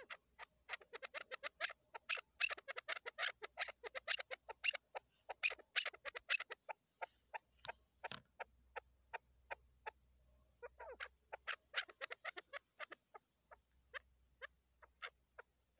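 Female chukar partridge calling: long runs of rapid, dry clucking notes, several a second, in two fast bursts, with slower single notes between them and near the end.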